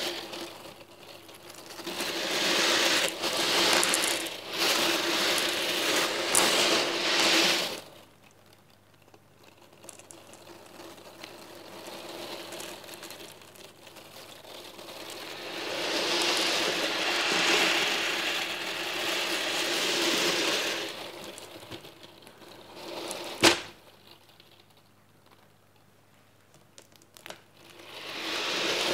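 Hundreds of small steel balls rattling and clattering against each other and their tray as it is shaken, in spells: a long loud spell at first, quieter for several seconds, loud again in the middle, then a single sharp click and the rattle building once more near the end.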